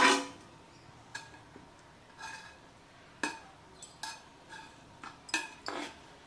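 Metal ladle clinking against a steel cooking pot as freshly cooked biryani rice is turned over and fluffed: a scattered series of short, ringing clinks.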